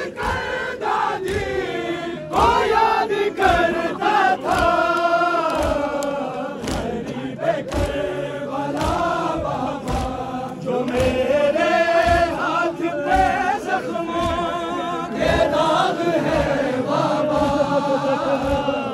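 A large crowd of men chanting a Shia noha (mourning lament) together, with the rhythmic claps of matam, hands striking bare chests, a little over once a second.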